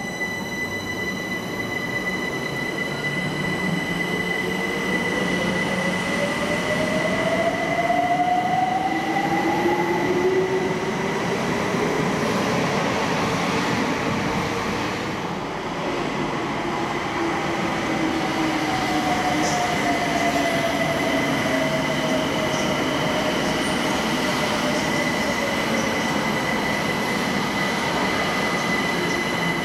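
London Overground Class 378 electric trains: one pulls away with a traction-motor whine climbing in pitch, then a second runs in, its whine falling as it slows into the platform. Throughout there is a rumble of wheels on rail and a steady high-pitched whine.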